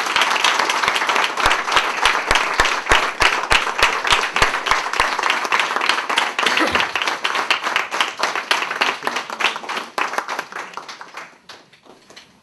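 Audience applauding, with a nearby clapper's sharp claps standing out in the first few seconds; the applause fades and dies away near the end.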